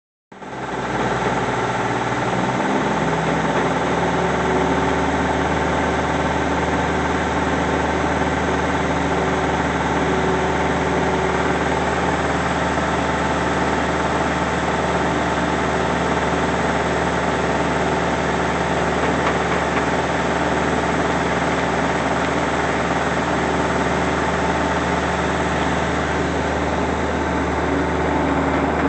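An engine running steadily at idle, its note settling to a new steady pitch about two and a half seconds in.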